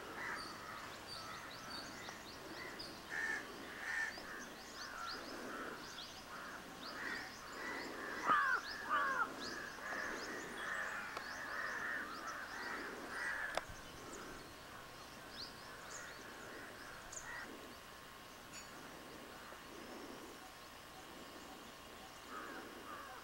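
Many birds calling over one another with harsh, overlapping calls, loudest about eight seconds in and thinning out after about fourteen seconds. A high chirp repeats about twice a second in the first few seconds.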